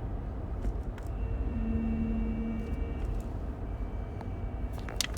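Toyota UA80F 8-speed automatic transmission whining over a steady vehicle rumble. The thin whine fades in and out and is loudest for about a second, starting about a second and a half in. The whine is a sign of a transmission failure that the owner suspects lies in the final drive. A few sharp clicks come near the end.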